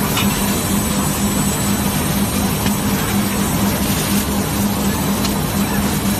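Hot forging press line machinery running, a steady loud drone with a low hum and a few faint clicks.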